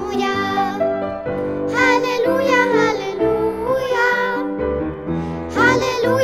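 A children's worship song: sung phrases over a steady instrumental accompaniment, with short breaks between lines.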